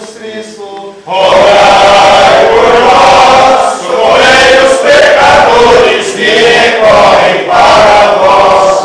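Men singing a Catholic litany (ladainha) in Portuguese as a chant. It is quieter for about a second, then loud, in phrases with short breaks between them.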